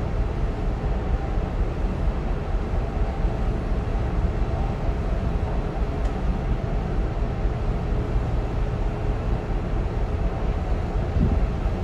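Steady low rumble with a faint, even machinery hum, heard on the deck of a docked cruise ship.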